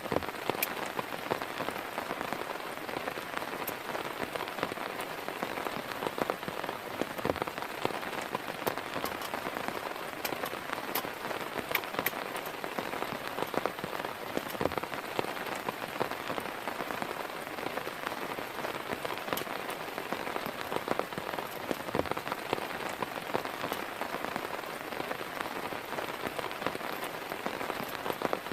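Steady heavy rain falling, with many separate drop hits on a nearby surface.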